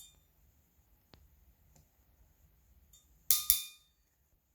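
Hand crimping tool working on an insulated ring lug: two sharp metallic clicks with a brief ring, a quarter second apart, near the end.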